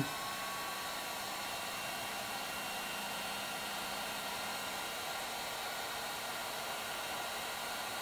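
Electric heat gun running steadily: a constant hiss of blown hot air with a faint, steady motor whine.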